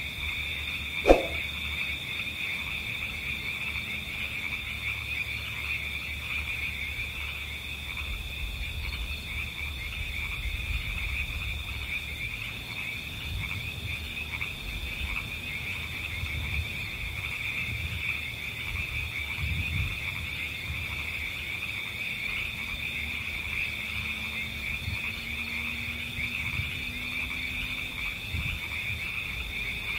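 A dense, steady chorus of calling frogs, pulsing without a break. There is one sharp click about a second in, the loudest moment.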